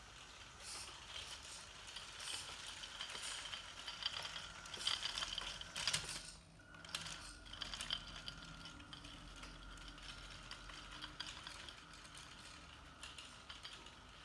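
Radio-controlled model tractor driving along, its small electric drive motor whining through plastic gears, while the towed plastic disc harrow rattles and clicks over a woven rug. The clatter is loudest about midway.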